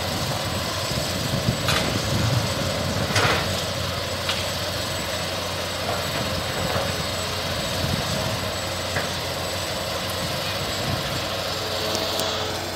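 Steady engine rumble under a hiss of background noise, with a few short clicks.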